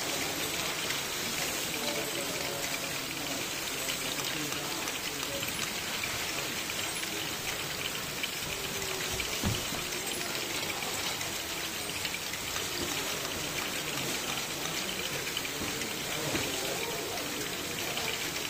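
LEGO Great Ball Contraption modules running: many small plastic balls rattling and clattering in a steady patter through the stair-step lift and tower, with people talking in the background. A single low thump about halfway through.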